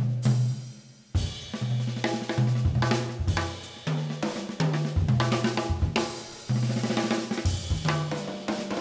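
Jazz drum kit played hard: snare, tom and bass drum hits under cymbal wash, with a short lull before a big hit about a second in.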